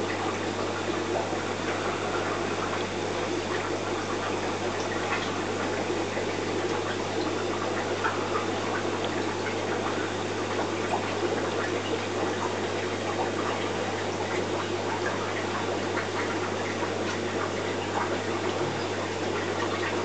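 Aquarium filter pump running: a steady low hum under a constant wash of moving water, with a few faint clicks here and there.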